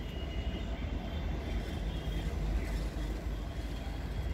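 Steady low rumble of a pair of Indian Railways locomotives approaching on the track.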